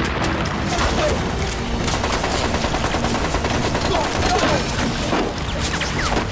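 Dense, continuous battle gunfire: many rifles and machine guns firing at once in a rapid barrage of overlapping shots.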